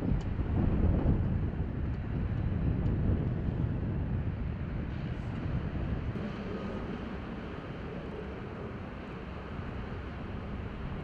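Wind buffeting the microphone outdoors, a low rumble that gusts strongest in the first few seconds and then eases.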